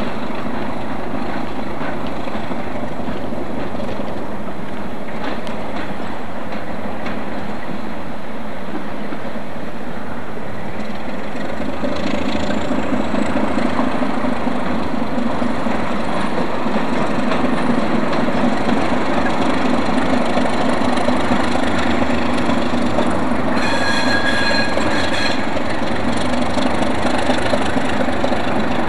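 NMBS series 71 diesel shunting locomotive, its ABC diesel engine running with rail noise, growing louder about halfway through as it works across the yard. Near the end a high steady tone sounds for about two seconds.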